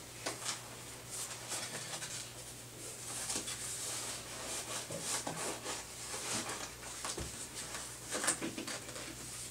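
Faint rustling and a few light clicks of a plastic extrication collar (C-collar) being handled, sized and fitted around a lying patient's neck, over a steady low hum.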